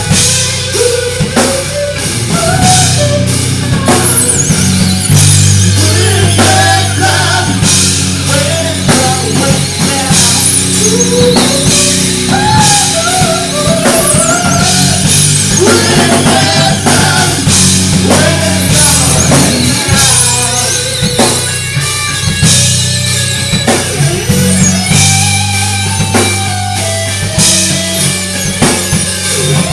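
Live rock band playing loud, with a drum kit and bass driving it and a wavering lead line over the top.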